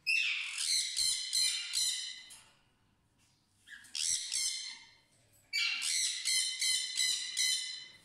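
Cockatiel squawking in three bouts of rapid, harsh repeated calls: a long one at the start, a short one around the middle and another long one near the end.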